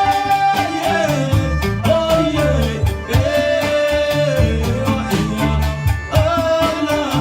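Gnawa music: a voice sings long held notes that bend between pitches, over a plucked guembri bass lute and a steady rapid clacking of qraqeb metal castanets.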